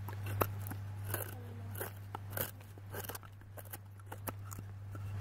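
Small kindling fire of dry twigs and bark crackling as it catches, with irregular sharp snaps and pops.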